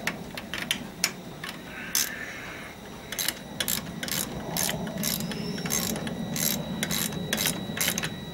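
Hand socket ratchet clicking in short irregular runs as the headlight-block bolt is snugged up, not fully tightened, so the headlight can still be moved.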